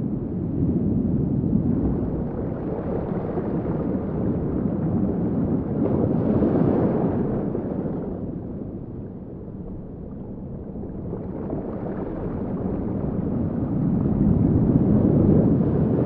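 Recreated underwater sea ambience: a muffled, low rush of water that slowly swells and fades, louder about six seconds in and again near the end.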